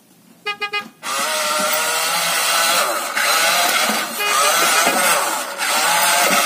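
Three short beeps, then a remote-control toy truck's electric motor and gears running with a loud, steady whir.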